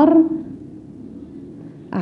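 A woman's voice holds the end of a word, then about a second and a half of low room tone before her speech starts again near the end.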